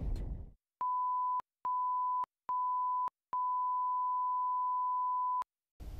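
Edited-in electronic beep sound effect: three short beeps and then one long beep, all at the same steady pitch.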